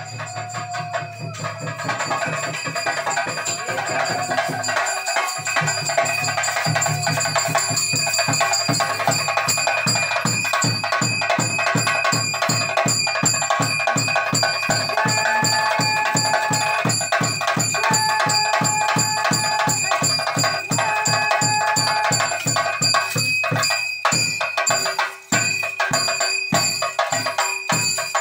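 Fast, even drumming with a steady metallic ringing over it. Short held melody notes come in about halfway through.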